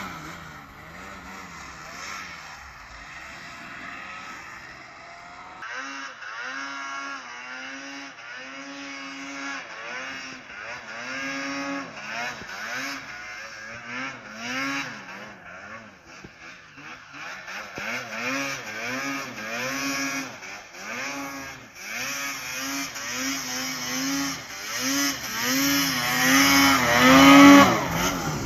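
Arctic Cat Alpha One two-stroke snowmobile engine revving up and back down over and over as the sled is worked through deep snow. It gets louder as it approaches and is loudest passing close by near the end.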